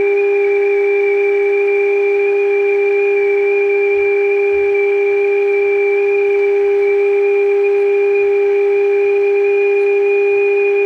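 Steady test tone of about 400 Hz from a Zenith AA5 tube radio's speaker, receiving a modulated 455 kHz signal from a signal generator during IF alignment. The tone holds at an even loudness throughout.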